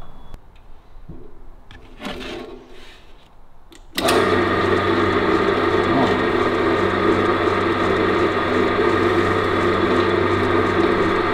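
A few light knocks of handling, then about four seconds in a pillar drill's motor starts and runs steadily, spinning a cork-tipped dowel against an aluminium panel to engine-turn it.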